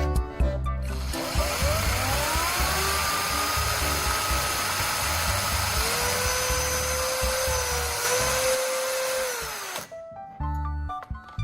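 Small electric power tool running, likely sharpening the end of a graphite rod from an old battery. It starts about a second in and spins up with a rising whine. It runs steadily, with a lower tone joining about six seconds in as the load changes, and cuts off near the end. Background music plays before and after.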